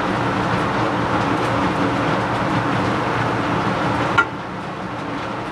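Steady whooshing hum of a laminar flow hood's blower fan running. There is a sharp click a little over four seconds in, after which the hum is slightly quieter.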